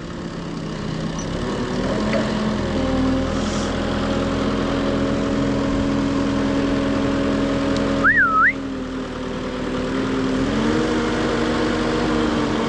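SkyTrak telehandler's diesel engine running, its pitch stepping up about two seconds in as it is throttled up, easing back a little later and rising again near the end. About eight seconds in there is a short wavering whistle.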